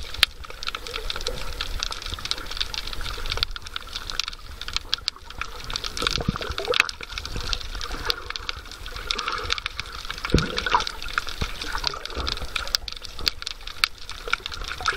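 Underwater sound through a submerged camera: water bubbling and moving with many small clicks and crackles, from a dog diving and paddling close by.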